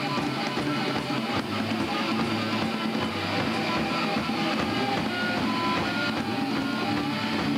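Small rock band playing live on electric guitars, bass guitar and drum kit, with strummed guitar chords at a steady level.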